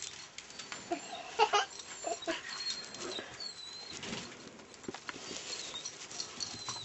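A dog's short whines, a few brief pitched cries with the loudest about a second and a half in and another just after two seconds, over light clicks and knocks.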